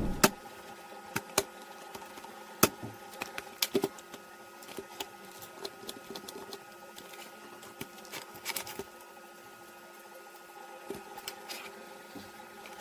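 Small electric motor switching on and running with a steady hum of several fixed pitches, over which come scattered sharp clicks and knocks.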